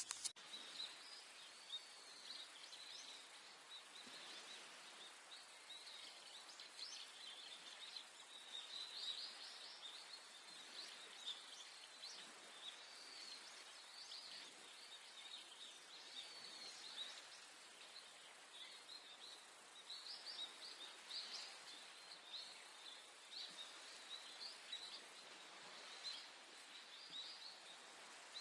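Small birds chirping and twittering over and over, quietly, above a faint steady background noise.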